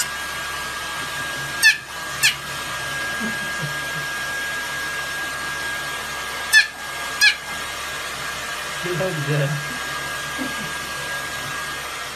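Hair dryer running steadily, with a thin high whine over its blowing noise. Two pairs of short, sharp falling chirps cut through it, one pair near the start and one a few seconds later.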